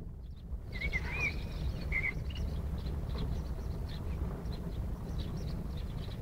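Small birds chirping a few short times, over a steady low outdoor rumble.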